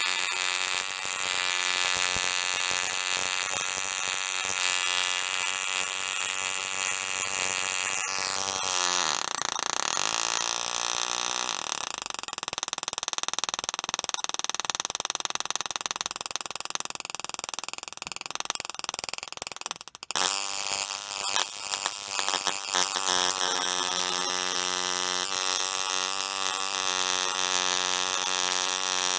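Small Tesla coil with a coiled-wire toroidal top load, buzzing steadily as its spark arcs to a hand-held cluster of LEDs. The buzz slides in pitch around nine seconds in and cuts out for a moment about twenty seconds in.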